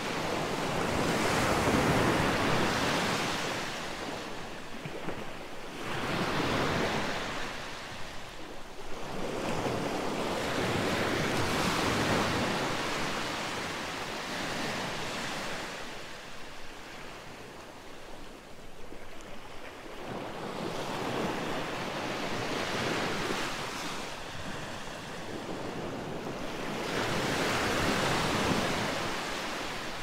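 Gentle sea waves breaking on a sandy, rocky beach and washing up the shore. The wash swells and fades about five times, each surge lasting a few seconds.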